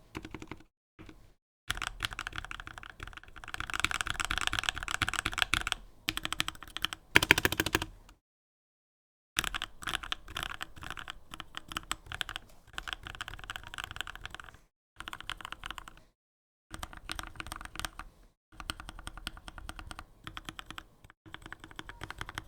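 Typing on a GK61 mechanical keyboard: fast runs of key clicks in bursts of a few seconds with short pauses between them, the loudest run about three-quarters of the way through the first burst.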